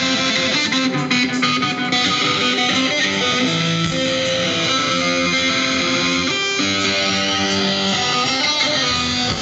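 Live rock band playing an instrumental passage: strummed electric guitars over bass guitar, loud and steady, with no vocals yet.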